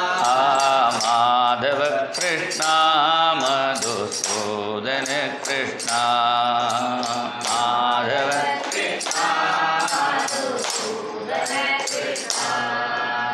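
Hindu devotional chant sung to music, with long wavering sung notes over a steady jingling percussion beat.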